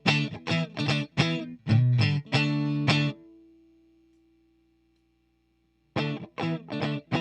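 Electric guitar chords from a PRS Silver Sky's single-coil pickups through a 12AX7 tube preamp pedal into a 6L6 tube amp, at the edge of breakup. Quick rhythmic strums, then about three seconds in a chord is left to ring and fades away to silence, and strumming starts again near the end.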